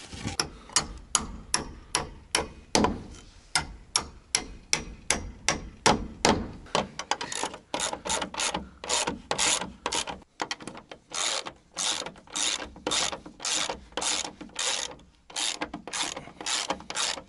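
Ratchet wrench tightening nuts onto bolts in a wooden frame, clicking in steady repeated strokes about two to three a second. The strokes grow louder and quicker in the second half, with short breaks about ten and fifteen seconds in.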